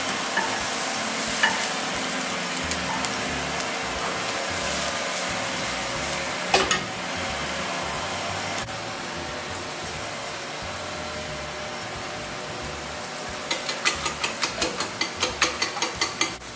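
Chopped mushrooms and peppers sizzling steadily in a sauté pan over a gas burner, with a wooden spatula stirring them. A single knock comes about halfway through. Near the end come quick, even clicks, about four or five a second, of eggs being beaten in a ceramic bowl.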